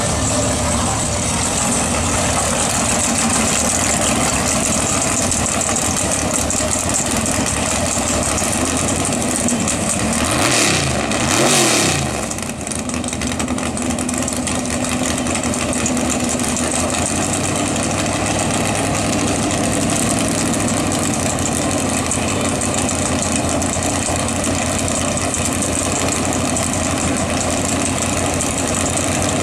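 Drag race car's engine running loudly as the car pulls up to the start line, with a brief rise and fall in pitch about ten seconds in, then settling into a steady idle.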